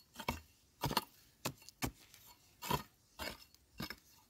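A hand digging tool striking dry, stony soil in a run of about eight sharp, uneven strikes, roughly two a second.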